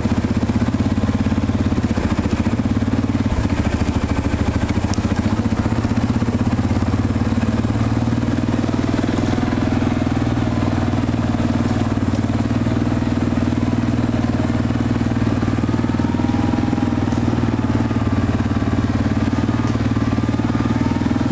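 An engine running steadily with an even low pulse, cutting off suddenly at the end.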